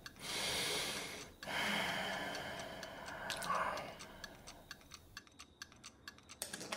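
Two long, soft breaths, then faint irregular crackling ticks of cellophane flower wrapping crinkling.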